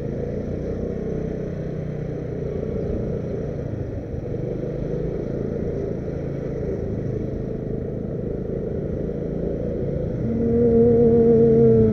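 Motor vehicle running steadily with road noise. Near the end a louder steady tone comes in for about a second and a half, then drops away.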